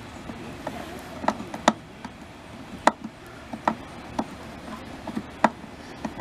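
Sharp metal clicks at irregular intervals, about a dozen, from a flathead screwdriver turning the screw of a hose clamp to tighten it over a garden hose coupler.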